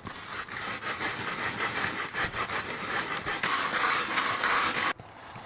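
Folded sheet of 60-grit sandpaper scratching over a styrofoam block in quick back-and-forth hand strokes, smoothing its rough surface. The scratching stops abruptly near the end.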